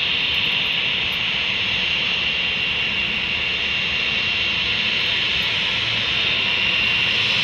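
Jet aircraft engines running steadily: a broad rush with one high, steady whine over it.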